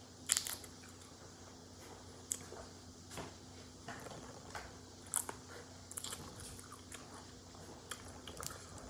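Crab shell being bitten and cracked open by hand, with scattered sharp cracks and snaps of shell, the loudest about a third of a second in, and soft chewing between them.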